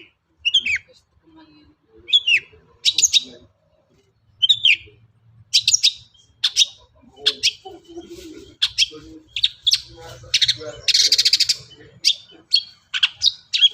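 Long-tailed shrike (cendet) singing a rapid, irregular run of short, sharp chirps, many falling in pitch, with mimicked phrases mixed in. A harsh, buzzy rasping note about ten seconds in is the loudest.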